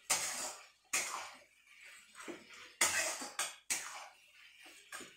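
Metal spatula stirring chicken masala frying in a steel pan: four sharp scraping strokes, each fading over about half a second.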